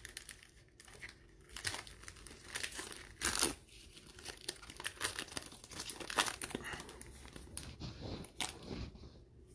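Wrapper of a pack of baseball trading cards crinkling and tearing as it is opened by hand, in irregular crackles with a few louder rips.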